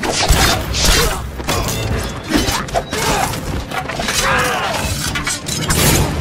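Sword-fight sound effects: blades clashing and metal clanking in quick repeated strikes, with a man's shout about four seconds in, over orchestral music.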